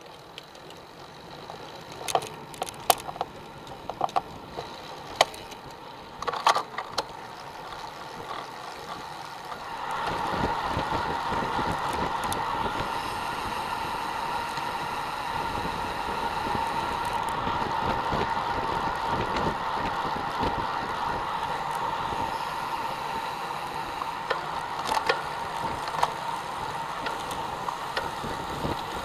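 Road bicycle riding on asphalt, heard from a camera mounted on the bike: sharp clicks and rattles in the first several seconds, then from about ten seconds in a louder steady rush of tyre and wind noise with a hum.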